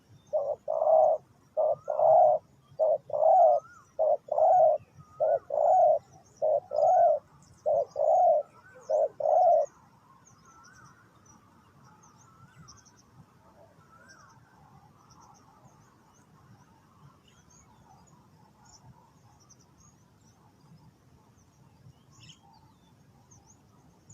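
Spotted dove cooing: a run of low, loud coos in short groups for about the first ten seconds, then it stops. Faint high chirps of other small birds continue underneath.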